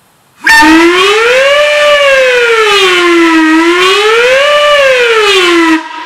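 5-inch Lunkenheimer "Fire Alarm" whistle blown on compressed air, its pitch swept up and down twice in a siren-like wail. It starts suddenly about half a second in and cuts off shortly before the end.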